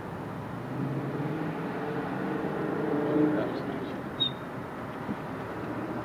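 A steady engine hum from a passing vehicle, swelling to its loudest about halfway through and then fading.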